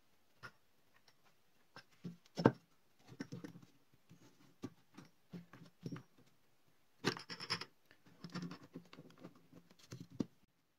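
Hands handling a sewn book block and a wooden book press on a tabletop: scattered taps, knocks and rustling, the loudest a sharp knock about two and a half seconds in, and a scraping rustle around seven seconds in.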